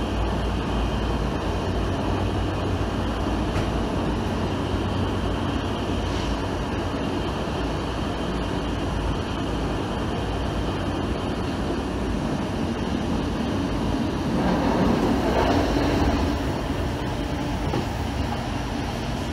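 Running noise of a 1980s-era train heard from on board as it travels through a tunnel, steady throughout and swelling a little louder for a couple of seconds about three quarters of the way in.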